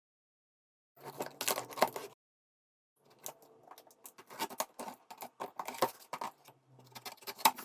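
Packaging being handled as the parts of a vacuum cleaner are taken out of the box: irregular clicks, knocks and rustles. They start about a second in, with a busy stretch of them in the second half.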